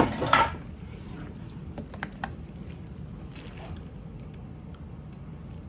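Tool parts being handled and fitted together: a few sharp clicks and knocks at the start, then scattered light clicks about two seconds in, over a steady low hum.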